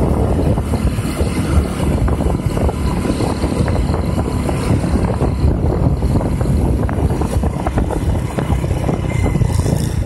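Steady wind buffeting the microphone of a moving vehicle, mixed with the vehicle's running noise.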